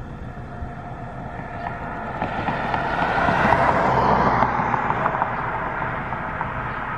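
Car driving along, its engine and tyre noise getting louder over the first few seconds, peaking around the middle, then easing a little.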